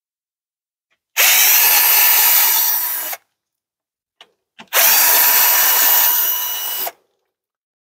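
A cordless screw gun with a square bit backs out the screws holding a camper's winch cover. It runs in two bursts of about two seconds each, each easing off a little toward its end, with a short click between them.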